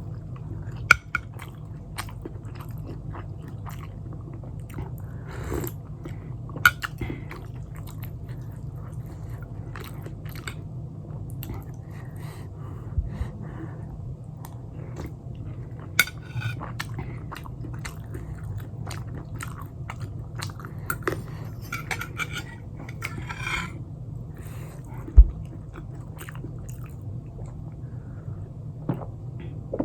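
Close-miked chewing and biting of pan-fried momos dipped in chutney, with crisp crunches and wet mouth sounds. A few louder knocks, likely dish or cutlery, come about a second in and again now and then, over a steady low hum.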